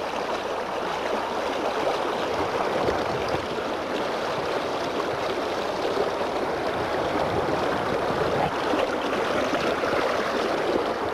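River water running: a steady, even rush of flowing water.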